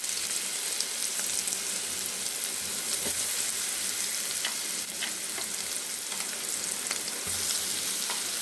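Ground pepper, cumin, garlic and onion paste frying in hot oil in a pan: a steady sizzling hiss with scattered small crackles.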